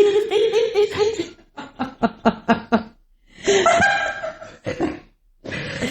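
People laughing, with a run of short, quick laugh pulses in the middle and a brief pause near the end.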